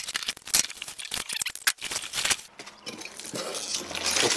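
A cardboard shipping box being opened and unpacked by hand: a quick run of clicks and knocks as the box is handled, then paper packing rustling in the last second or so.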